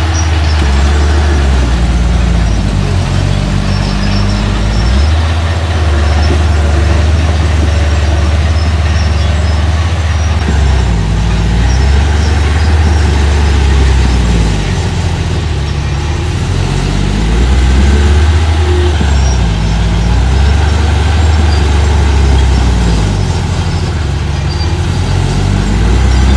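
Engine of small earthmoving machinery running hard, its pitch rising and falling repeatedly as the machine works.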